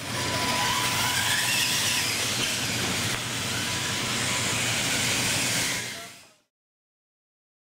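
Radio-controlled monster trucks running on a dirt track: a steady hiss of motors and tyres, with a faint rising whine about a second in. It fades in at the start and fades out about six seconds in.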